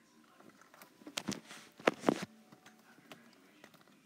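Handling noise from a boxed fidget spinner in its plastic blister pack: light clicks and a brief rustle about a second in, then two sharper knocks around two seconds in.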